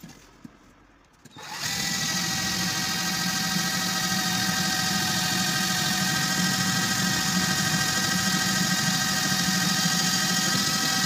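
Cordless drill running steadily as it bores a hole through the metal shell of a fire extinguisher. The motor starts about a second and a half in and holds one even pitch.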